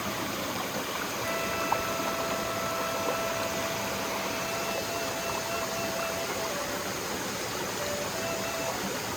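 Danso, a Korean vertical bamboo flute, holding one long slow note for about five seconds, then dropping briefly to a lower note, over the steady rush of a mountain stream.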